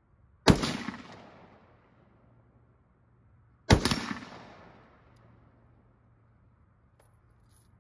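Two shots from a muzzle-braked AR-10-style semi-automatic rifle in 7.62x51/.308, about three seconds apart, each a sharp crack followed by a long rolling echo that fades over a second or more.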